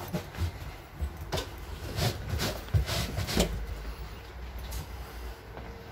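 Handling noise from a handheld camera on the move, with a low rumble and a string of knocks and thumps, the loudest a little under three seconds in and again around three and a half seconds.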